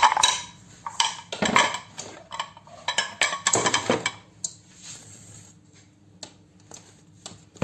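Kitchen utensils and dishes clattering: a quick run of clinks and knocks, then a few light taps near the end.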